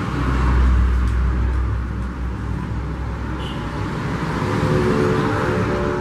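Road traffic: a motor vehicle rumbling past, loudest over the first few seconds, with a steady droning engine note coming in over the last two seconds.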